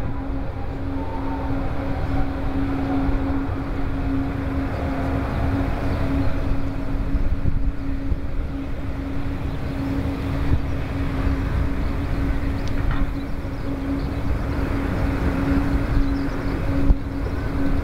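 Boeing 777-200's twin jet engines running at low power as the airliner rolls slowly away after landing: a steady low rumble with a constant hum.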